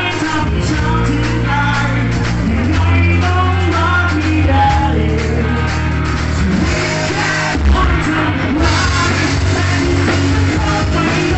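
Rock band playing live: electric guitar, drum kit and a singer carrying the melody.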